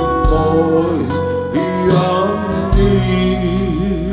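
Live gospel worship song: a singer's melody over acoustic guitar and band, with a steady beat about once a second.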